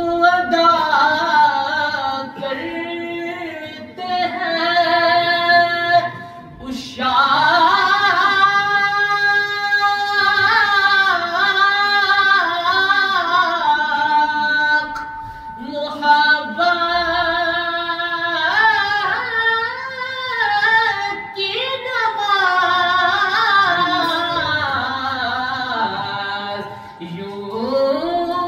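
A man singing a naat unaccompanied in a high voice, in long held, ornamented phrases with short breaks for breath.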